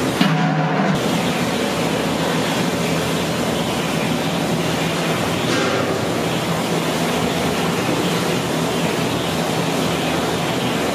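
Steady loud rushing background noise of a commercial catering kitchen, with no breaks or distinct events.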